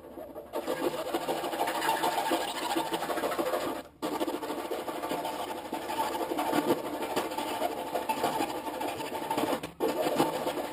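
Hacksaw cutting through a thick welder cable with fast back-and-forth strokes, a steady rasping scrape that stops briefly twice.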